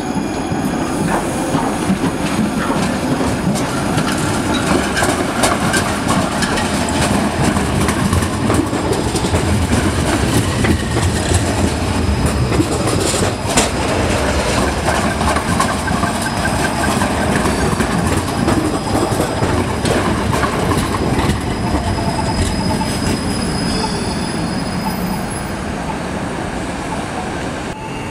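Electric trams running on street track: a steady rumble of steel wheels on rail, with rapid clicks as the wheels pass over joints and points. Faint wheel squeal comes in now and then.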